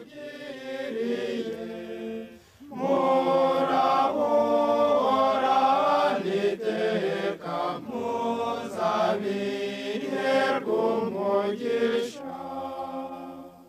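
A group of young men singing together unaccompanied, in held, chant-like notes: the novices of a religious brotherhood. A short break comes about two and a half seconds in, and then the singing is fuller and louder.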